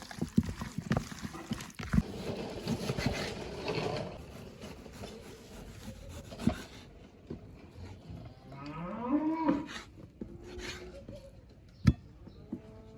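A cow mooing once, a single drawn-out call of about a second and a half that rises in pitch, about eight seconds in. In the first few seconds there are scattered knocks and rustling.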